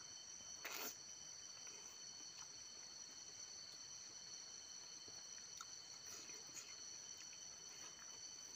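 Steady high-pitched insect chirring, two unbroken tones throughout, with a short wet smack of eating by hand about a second in and a few faint clicks of chewing later.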